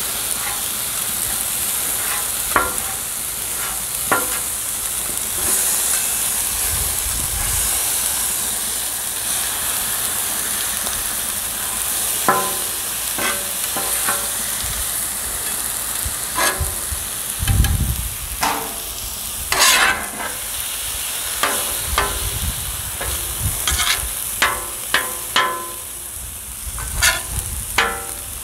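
Thin shaved steak sizzling on a Char-Griller Flat Iron steel griddle at medium heat, with metal spatulas scraping and clacking against the griddle as the meat is chopped up and turned. The clacks come more often in the second half.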